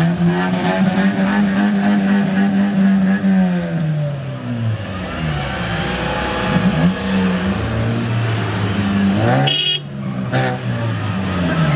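Car engine revving repeatedly: the engine note is held high for a few seconds, falls away, then climbs again in further blips. A short sharp burst of noise cuts in about nine and a half seconds in.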